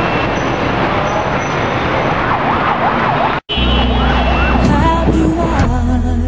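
Busy road traffic with a siren wailing up and down over it. The sound drops out abruptly for an instant about three and a half seconds in, then resumes. Music with sustained notes comes in near the end.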